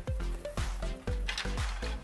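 Background music with a steady beat of about four deep, pitch-dropping drum hits a second over a continuous bass.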